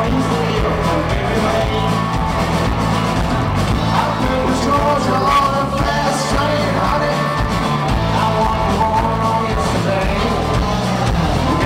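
Live rock band playing loud, with electric guitars, bass and drums and a singer, heard from within the crowd in front of the stage.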